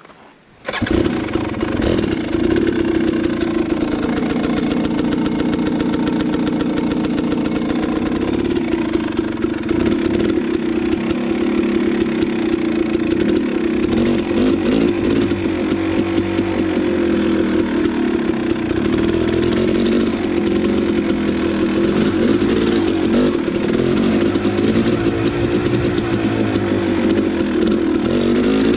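Two-stroke KTM 300 XC dirt bike engine running while being ridden, its pitch rising and falling a little with the throttle. It comes in suddenly about a second in.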